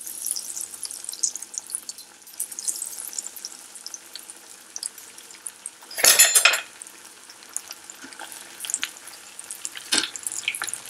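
Breaded macaroni cheese balls deep-frying in hot oil in a wok: a steady crackling sizzle. There is a louder burst about six seconds in, and a sharp click of the wire skimmer against the pan near the end.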